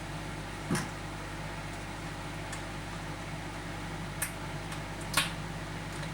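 Microwave oven running with a steady hum while an egg heats inside. Three short, sharp pops or clicks sound over it, the loudest about five seconds in.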